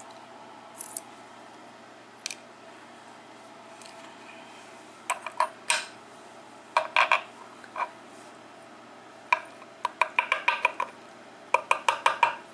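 Small metal lock parts, the brass pins and cylinder of a disassembled pin-tumbler lock, clinking and rattling against each other and a hard surface. The clinks come in short, quick clusters, with the longest runs near the end.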